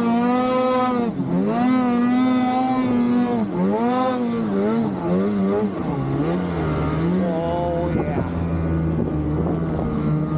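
Naturally aspirated Polaris Khaos snowmobile's two-stroke engine revving up and down under the rider's throttle, the pitch rising and falling every second or so, then settling into a steady lower note for the last few seconds.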